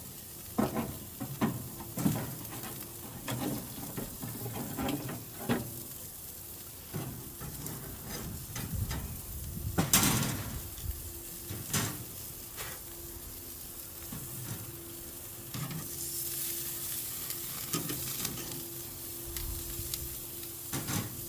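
New York strip steaks sizzling on a charcoal grill, with scattered sharp clicks and knocks, the loudest about ten seconds in.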